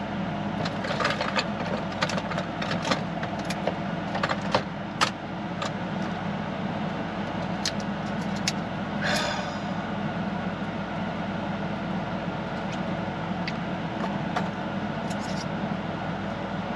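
Small window air conditioner running with a steady hum. Over it come clicks and rustles of plastic containers and a fork being handled, most in the first few seconds, and a short rustle about nine seconds in.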